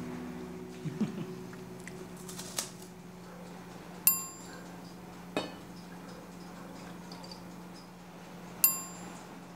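Metal clinking against an enamel saucepan: two sharp, ringing chinks, about four seconds in and near the end, with a few softer taps between, over a faint steady hum.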